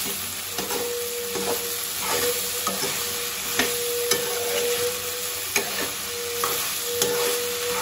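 Vegetables and boiled fusilli pasta sizzling in hot oil in a pan while a spatula stirs through them, with irregular clicks and scrapes of the spatula against the pan.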